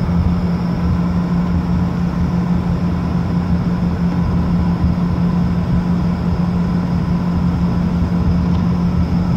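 Steady drone of an airliner's engines at taxi power, heard inside the passenger cabin, with a constant deep hum and no change in pitch.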